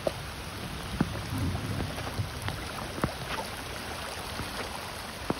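Steady rain falling, an even hiss broken by a few sharp taps.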